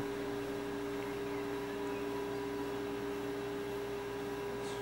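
A steady electrical hum with a few fixed tones over a faint hiss, unchanging throughout.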